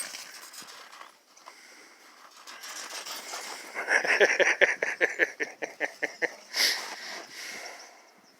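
An animal breathing hard close to the microphone: a quick run of short breaths, about five a second, building from about three seconds in, with one louder burst near the end.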